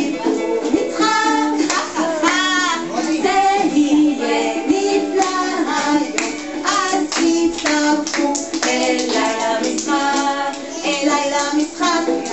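A woman singing a lively Hebrew children's song with music accompaniment.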